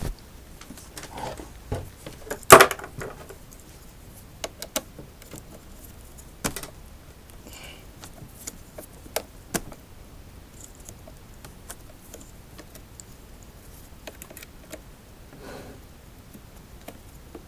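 Scattered clicks and clinks of small metal and plastic parts being handled during disassembly of an electric unicycle, with one sharp, louder clack a couple of seconds in and softer rustling between.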